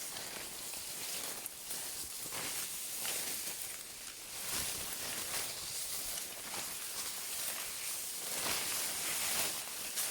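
A hiker's footsteps crunching on a forest trail, about one step a second, over a steady outdoor hiss.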